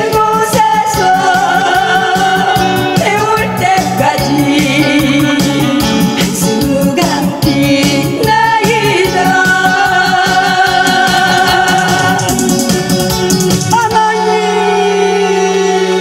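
A woman singing a Korean song into a microphone over an amplified backing track with a steady beat. About two seconds before the end the beat stops and a long closing chord rings on as the song finishes.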